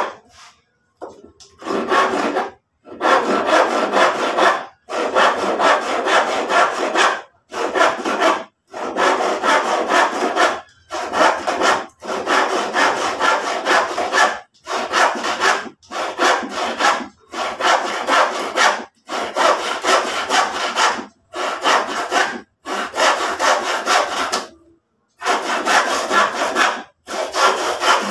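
Handsaw cutting through old lumber, rasping in stretches of a second or two broken by short, abrupt gaps.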